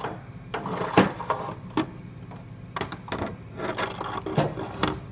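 Steel hand tools clinking and knocking against the metal tool cart as they are handled: a string of separate knocks, the loudest about a second in, over a low steady hum.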